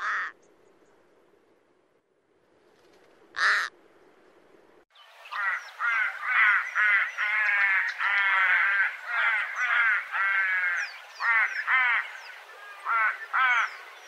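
Little crow (Corvus bennetti) calling: a single short call at the start and another about three and a half seconds in, then from about five seconds rapid runs of short calls, each slanting down in pitch, coming in bursts with brief gaps.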